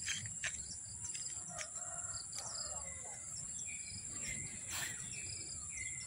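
Small birds chirping at random over a steady, high-pitched insect trill, with a few sharp clicks and a low rumble underneath.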